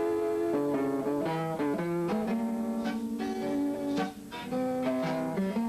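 Instrumental introduction of a song: a slow melody played note by note over guitar accompaniment, with no singing yet.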